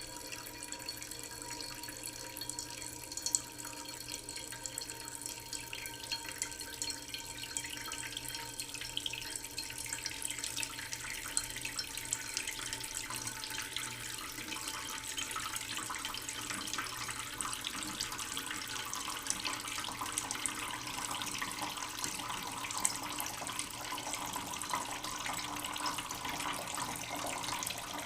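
Water running steadily, a continuous splashing trickle that grows a little louder and busier about halfway through.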